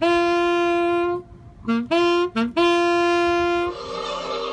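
A saxophone plays two short phrases, each a few quick notes ending on a long held note, with a brief gap between them. Near the end the saxophone stops and a different, noisier sound takes over.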